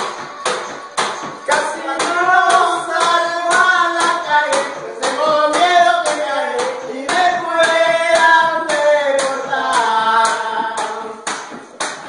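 Men singing a song together over a steady beat of about three strokes a second drummed on upturned plastic buckets. The singing starts about a second and a half in and stops near the end, leaving the bucket beat alone.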